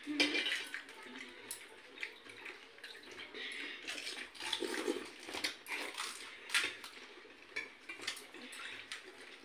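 Gupuchup (pani puri) being eaten: hollow crisp puris cracked open with fingers and dipped into a steel bowl of spiced water, giving irregular crunches and crackles, light clinks on steel plates and small splashes of liquid.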